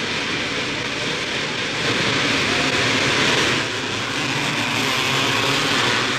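A pack of motocross bikes' two-stroke engines revving hard together as they accelerate away from the start, a dense continuous roar that swells a little about two seconds in.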